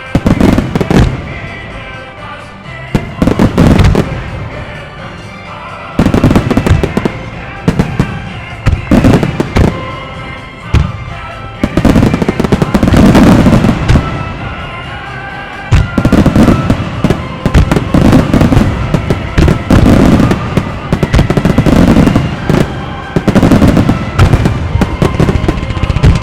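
Starmine fireworks display: aerial shells launching and bursting in rapid salvos, sharp booms and crackles with rumbling echoes, with the heaviest barrages in the second half. A song plays over loudspeakers underneath.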